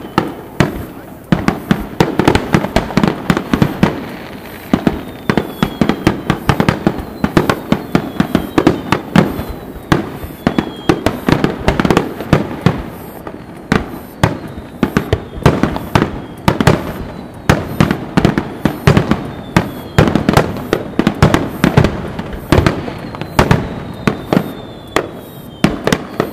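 Fireworks display: aerial shells bursting in a rapid, continuous barrage of loud bangs, several a second, with faint falling whistles from time to time.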